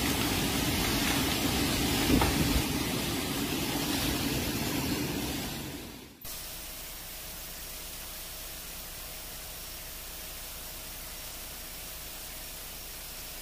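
Storm wind and heavy rain rushing, buffeting the microphone as a loud, steady noise. About six seconds in it cuts off abruptly to a much quieter, steady hiss.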